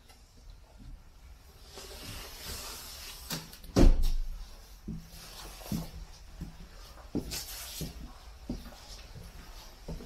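Footsteps and handling knocks on the floor of an empty articulated bus: irregular low thumps about every half second to a second, with one much louder knock about four seconds in.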